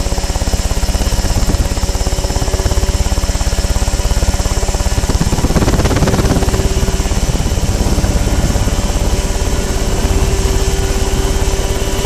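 Mosquito ultralight helicopter's engine running at a steady speed, heard close up from a camera mounted on the airframe.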